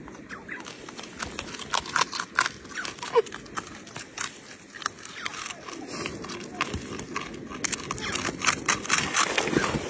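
Marmot biting and chewing a crisp puffed-grain cake: a quick run of small crunches and clicks, thicker near the end.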